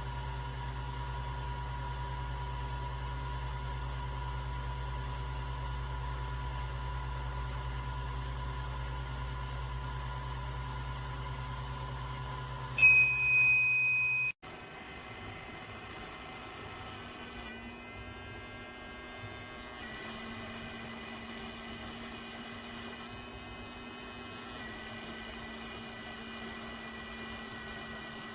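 Steady electrical hum and whir from an Ender 3 3D printer whose heated bed keeps heating on its own, a fault. About 13 seconds in, a loud high electronic beep sounds for about a second and a half. The sound then cuts off suddenly, and a quieter hum with a thin whine carries on.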